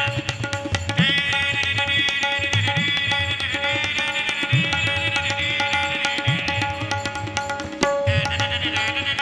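Sanai (shehnai) melody played through the nose, a held, ornamented line that slides up into its notes, with a short break near the end. It is accompanied by a steady drone note and low hand-drum strokes.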